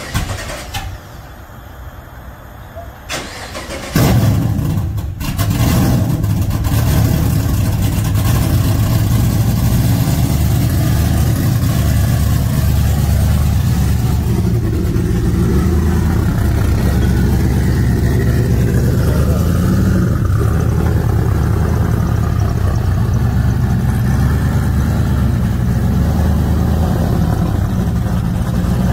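A Stadium Super Truck's V8 LS engine starting about four seconds in, on a test start to see whether it will run, then running steadily and loudly.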